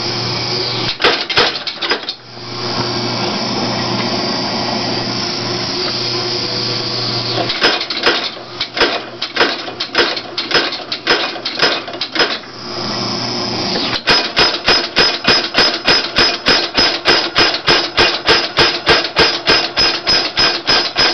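Junkyard-built mechanical power hammer running: a steady motor hum with a few ram strokes, then an uneven run of strokes about halfway through, and over the last seven seconds or so an even run of about four strokes a second.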